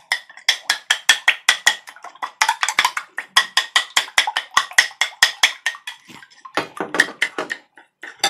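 Metal spoon beating eggs in a glass bowl, clinking against the glass about five times a second, softer and sparser near the end.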